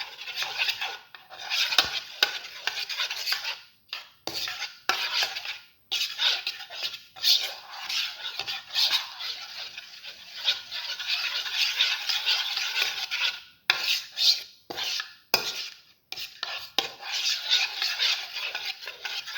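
A beaten egg mixture being whisked briskly with a utensil in a bowl: rapid clinking and scraping against the bowl, stopping briefly a few times.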